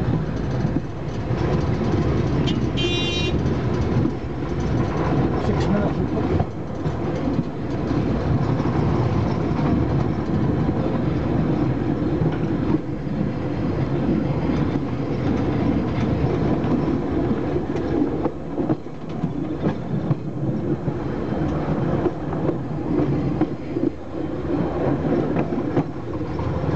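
Heritage passenger train running along the track, a steady rumble of wheels on rail heard from the open rear balcony of the last carriage. A brief high-pitched squeal about three seconds in.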